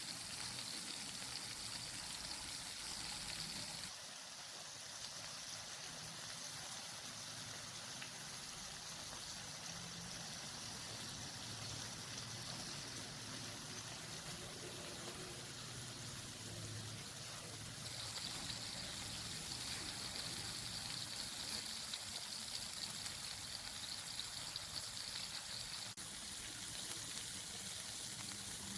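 Lamb seekh kebabs sizzling on a hot plate, a steady hiss that changes abruptly at cuts about four, eighteen and twenty-six seconds in.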